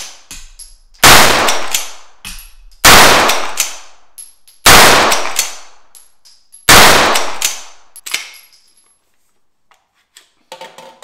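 Four shots from a Southern Gun Co LAR9 9mm lever-action rifle, fired a little under two seconds apart, each ringing on in a small enclosed shooting booth, with short clicks of the action between shots. A few light clicks near the end.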